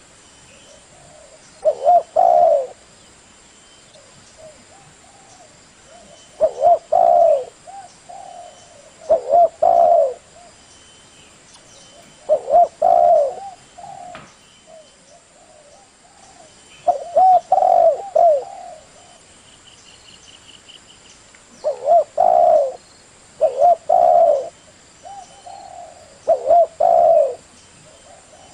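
A dove cooing: short coo phrases of about a second each, repeated every few seconds, about nine in all.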